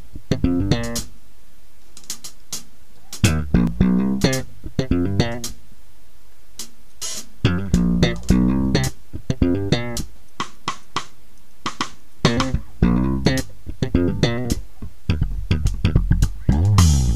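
Electric bass guitar playing an unaccompanied intro in short melodic phrases separated by pauses. Drums join in a denser passage near the end.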